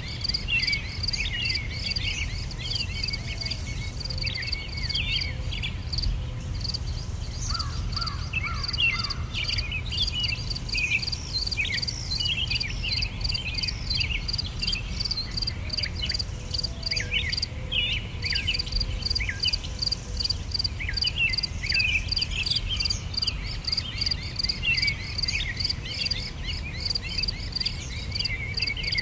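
Outdoor nature ambience: crickets keep up a steady, fast, high trill while many birds chirp in short falling calls, over a low steady rumble.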